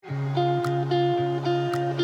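Background music fading in: held chords restruck about twice a second over a light beat.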